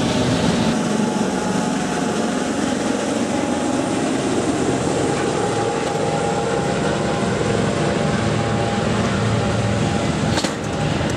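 Fire rescue helicopters flying past, a steady mix of turbine and rotor noise.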